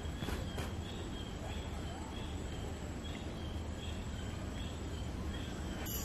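Outdoor nature ambience: a short high chirp repeated about twice a second from a small animal, over a steady low background rumble.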